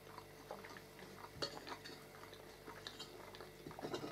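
Faint clicks and scrapes of a fork and a spoon against plates and a bowl during a meal, the sharpest click about a second and a half in and a few more close together near the end.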